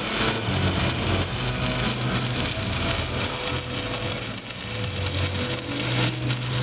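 Stick (SMAW) welding arc burning a 3.2 mm electrode at about 95 amps, with a steady crackling hiss over a low hum.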